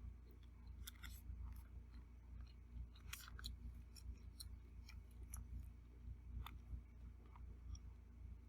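Faint eating sounds: scattered soft clicks and crunches of chewing and cutlery, clustered about a second in and again around three seconds, over a low steady hum.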